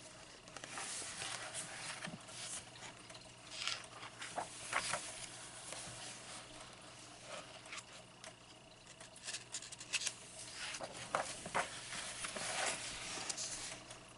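Paper pages of a large softcover coloring book being turned and pressed flat by hand: uneven rustling and sliding of paper, with several sharper crinkles.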